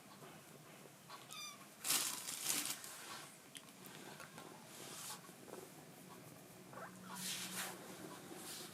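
A young kitten making small noises: a brief thin squeak, then two bursts of scuffling, smacking noise about two seconds in and again near the end.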